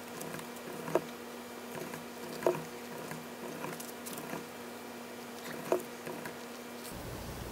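Steamed, softened cabbage leaves being peeled from the head by hand, a soft wet rustling, with three short sharp slaps as the cabbage meets the metal baking sheet.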